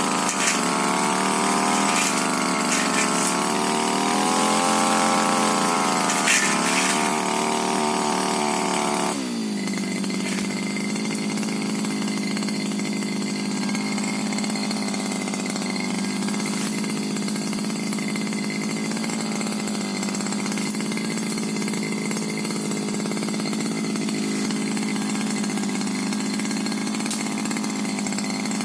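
Tiger TG328 brush cutter's small two-stroke engine running at high revs under load while cutting scrub, its pitch wavering, with a few sharp clicks from the blade striking growth. About nine seconds in the throttle drops and the engine settles to a steady, lower-pitched run.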